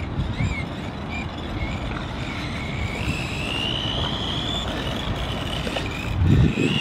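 Razor X Cruiser electric skateboard's motor whining, climbing slowly in pitch as the board picks up speed, over a low rumble. A heavier bump comes near the end.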